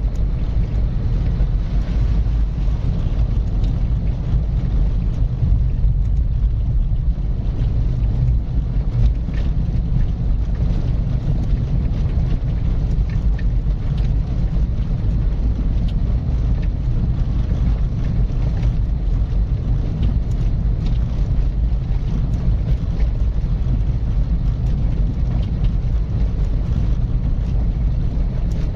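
Car driving at a steady pace: an even low rumble of tyres on the road, engine and wind.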